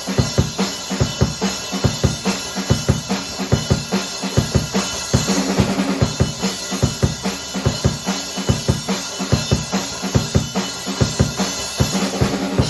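Drum kit played solo, without the song's backing track: a steady, busy groove of bass drum and snare hits with cymbals washing over them.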